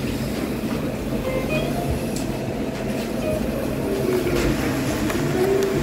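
Steady low rumble and hum of restaurant room noise, with faint voices in the background.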